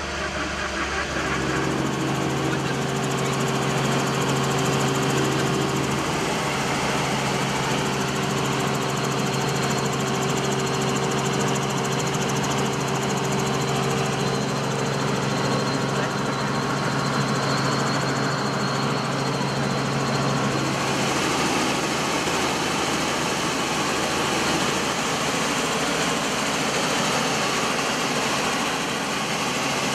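Robinson R44 Raven I helicopter's six-cylinder Lycoming piston engine and rotors running, heard from inside the cabin: a steady rushing noise under an even hum, the hum fading about twenty seconds in.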